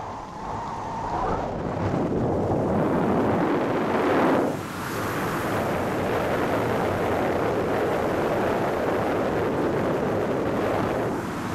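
Wind rushing over the microphone during a steep parachute canopy spiral, building about two seconds in and then staying loud and steady.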